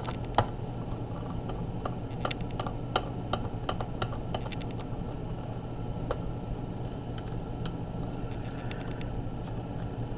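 Scattered small clicks and taps of a precision screwdriver working screws out of a laptop's metal bottom panel, with the sharpest click about half a second in and a run of clicks a couple of seconds later.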